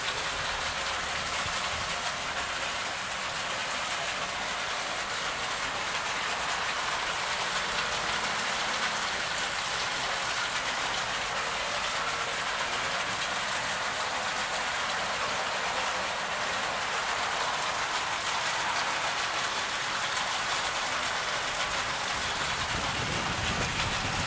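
Steady, even hiss of falling water.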